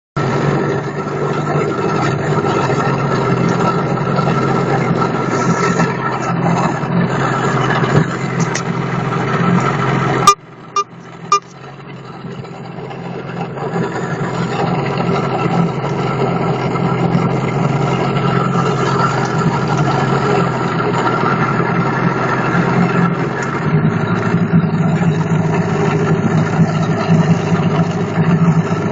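A vehicle engine running with a knock, the fault the recording is meant to show. About ten seconds in the sound drops away with a few sharp clicks, then builds back up over the next few seconds and runs steadily again.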